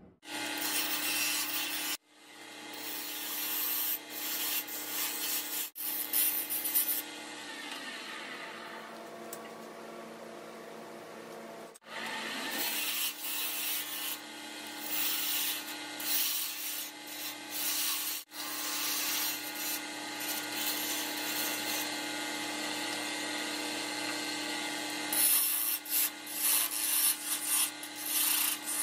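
A General wood lathe runs with a steady motor hum while turning tools cut a spinning mahogany blank. The cutting makes a scraping hiss that swells and fades with each pass, and the sound breaks off abruptly for a moment a few times.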